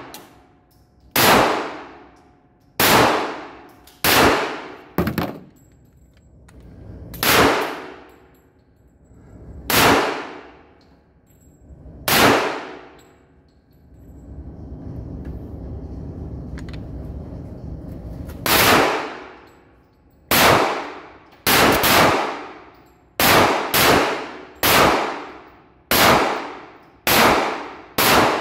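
Gunshots at a shooting range: about twenty single shots, each a sharp crack with a long echoing tail. They come every second or two, pause for a few seconds while a steady rushing noise plays, then come faster, about once a second, near the end.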